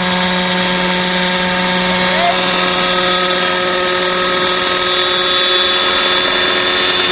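Unmanned model helicopter's engine and rotor running steadily in flight: a constant drone at an unchanging pitch.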